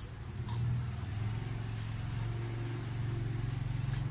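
Low, steady motor-vehicle engine hum that swells about half a second in and holds, with a few faint clicks over it.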